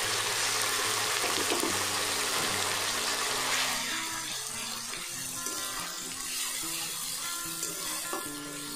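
Onion paste sizzling as it hits hot oil in a kadai, loud at first and settling down after about four seconds as it is stirred in. Background music plays throughout.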